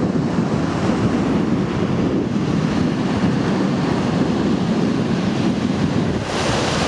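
Surf breaking on a beach, with wind buffeting the microphone in a low, rough rumble. About six seconds in the sound turns brighter and hissier as the breaking waves come to the fore.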